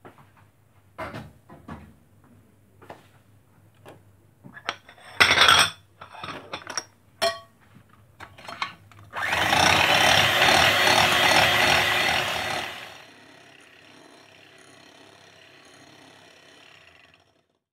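Knocks and clicks as an electric hand mixer is handled at a glass bowl, then the mixer runs loudly for about four seconds whipping eggs and sugar, drops to a quieter steady whir, and stops suddenly shortly before the end.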